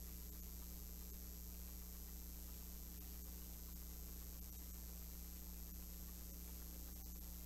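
Steady low electrical hum with hiss and a thin high-pitched tone: the room tone of the livestream's audio feed, with no distinct sounds over it.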